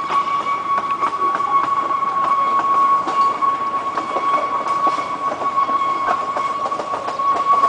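Steam locomotive approaching around a curve, heard over a steady high drone that holds one unchanging pitch throughout, with scattered clicks.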